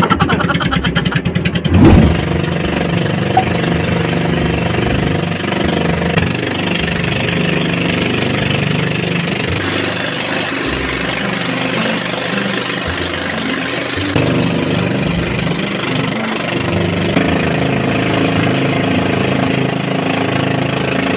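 Engine of a motorized outrigger boat (bangka) running steadily at cruising speed, its pitch shifting slightly every few seconds, with a brief loud burst about two seconds in.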